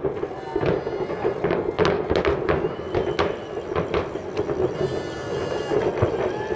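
Distant aerial fireworks shells bursting in a rapid run of bangs and pops, thickest about two seconds in and again around four seconds in.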